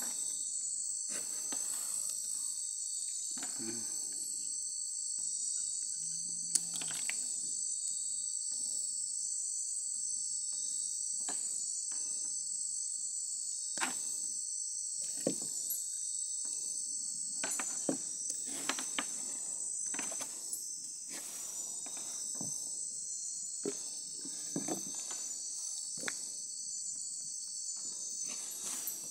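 Steady, high-pitched insect chorus trilling without a break, with scattered faint clicks and knocks over it.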